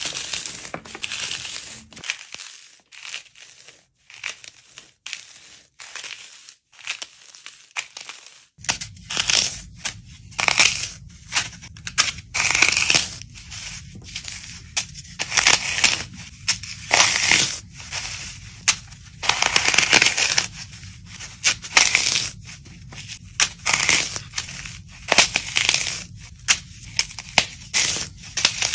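Dry floral foam crushed and crumbled in bare hands, a run of quick, irregular crunches and crackles. About a third of the way in the crunches become denser and louder as a brown foam block is squeezed apart.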